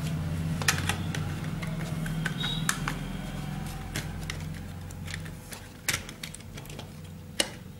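Plastic handle casing of an electric mosquito racket being pried open with a screwdriver: scattered sharp plastic clicks and snaps as the cover's clips release, over a low steady hum that fades out about two-thirds of the way through.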